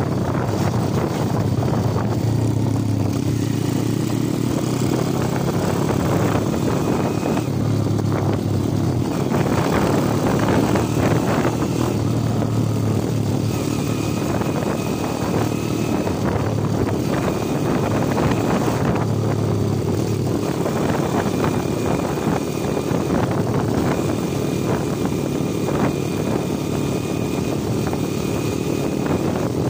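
Underbone motorcycle engine running as the bike rides along, its note shifting up and down a little with the throttle.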